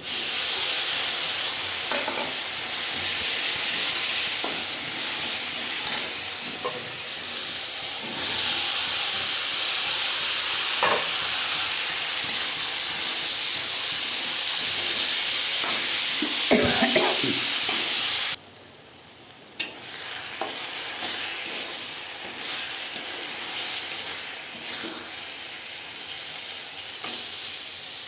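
Food frying in hot oil in a pan with a steady sizzle, stirred with a spoon that taps and scrapes now and then. The sizzle drops suddenly about eighteen seconds in and carries on more softly.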